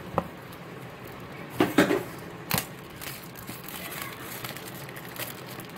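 Clear plastic shrink wrap being torn and peeled off a small cardboard box, crinkling. A few loud sharp crackles come about two seconds in.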